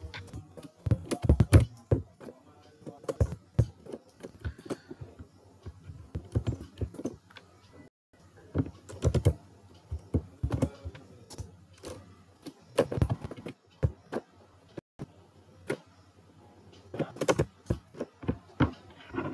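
Typing on a computer keyboard: irregular clusters of keystrokes with short pauses between them.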